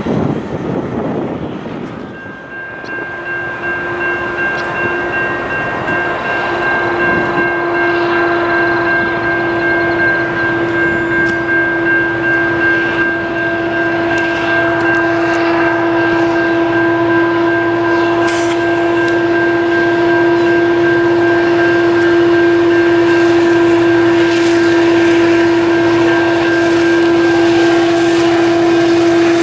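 Diesel freight locomotive's horn held in one long steady chord, growing gradually louder as the train approaches. Wind buffets the microphone in the first couple of seconds.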